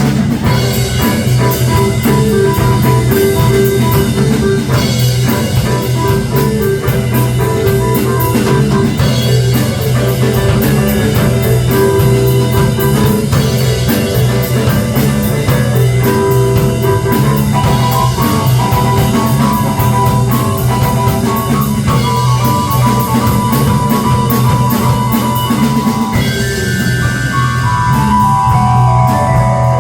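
Live rock band playing an instrumental passage, with drum kit and guitar over a steady bass line. Near the end a run of notes steps down in pitch.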